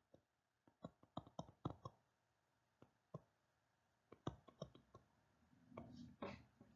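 Near silence broken by about a dozen faint, irregular clicks and taps, from a stylus tapping on a tablet or digitiser screen while words are handwritten.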